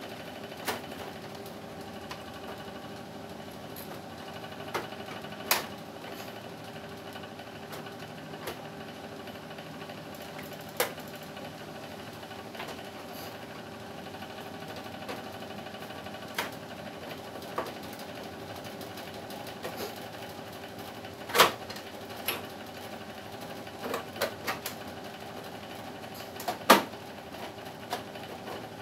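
Steady hum of a split-type air conditioner's indoor unit, with scattered sharp clicks and knocks as its plastic front panel and louvers are handled. The loudest knocks come about five seconds in, near the middle and near the end.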